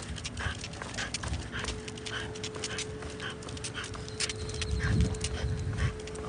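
French bulldog panting noisily as it trots on a leash, its claws clicking on the concrete sidewalk.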